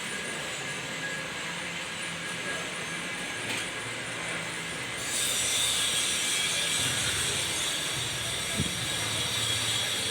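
Steady mechanical running noise with thin high whining tones; a loud high hiss comes in about five seconds in and holds.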